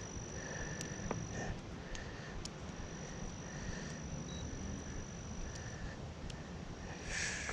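Insects chirring by a pond: a steady high-pitched whine with a lower chirp repeating roughly once or twice a second, and a few faint clicks.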